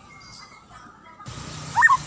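White-rumped shama singing: a faint thin whistle in the first half second, then near the end a loud whistled note that slides steeply up and drops back down.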